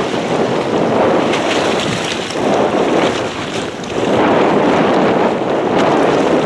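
Wind buffeting the microphone over the wash of the sea around a boat: a loud rushing noise that swells and eases.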